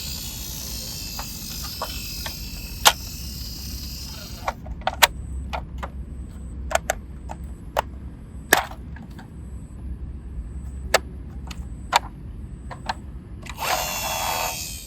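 Toy cars rolling and being handled: a whirring rattle of small wheels for the first few seconds, then a string of sharp plastic clicks and knocks, and another short whir near the end.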